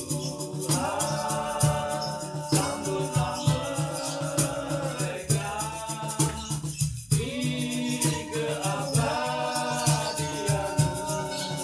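A band's song: a singing voice carrying a melody over fast, even percussion ticks and a regular bass pulse.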